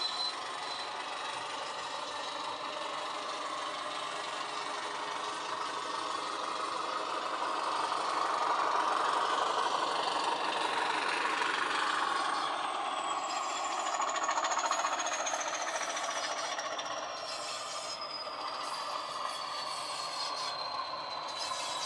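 Class 20 diesel locomotive sound played through a model locomotive's DCC sound decoder speaker: the recorded English Electric engine running under way, with the model's wheels and mechanism on the track. A thin high whistle slowly falls in pitch through the second half.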